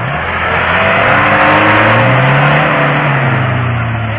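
Off-road vehicle's engine revving hard under load, its pitch climbing and then easing back down, loudest about midway.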